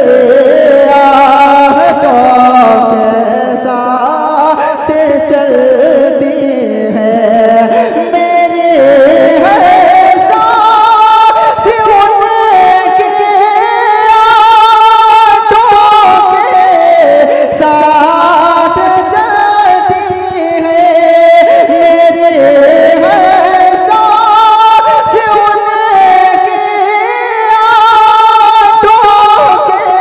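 A man reciting a naat, singing into a microphone in long melodic phrases with a wavering, gliding pitch.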